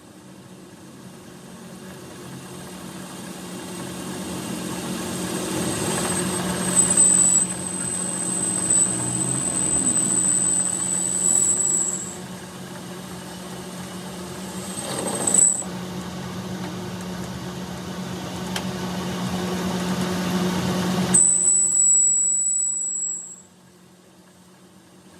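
A machine running steadily with a low hum that slowly builds, and a thin high-pitched squeal twice. The machine shuts off near the end.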